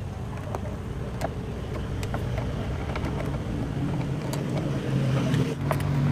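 A motor vehicle engine running with a low rumble that grows steadily louder, taking on a steady hum of stacked tones in the last second or two. A few light clicks sound over it, fitting the screwdriver working the scooter's panel screws.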